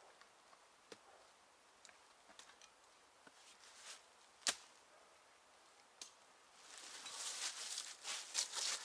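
Sparse light clicks and one sharp snap about halfway through, then steady rustling and crackling from about seven seconds in.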